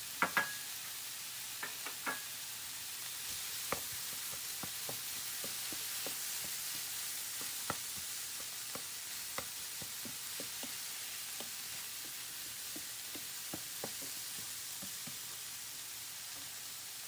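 Diced vegetables and scrambled egg sizzling steadily in a nonstick frying pan as a wooden spatula stir-fries them. Scattered light clicks of the spatula against the pan run throughout, with a few sharper taps right at the start.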